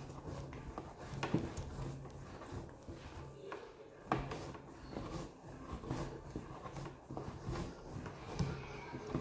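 Hands kneading soft, sticky batbout bread dough on a kneading tray: uneven slaps and squishes as the dough is pressed, folded and pulled, with a sharper slap about a second in and another about four seconds in.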